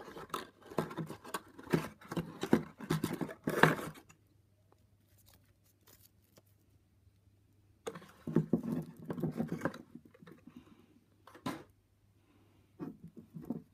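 Handling noises of foil-wrapped chocolate eggs being picked up and set down on a wooden desk: quick rustles, clicks and knocks. They come in two bursts with a pause of a few seconds between, then a few single knocks near the end.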